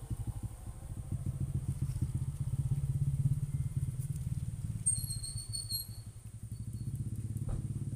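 A low, steady rumble of fast even pulses, like a small engine idling, with a brief high chirp about five seconds in.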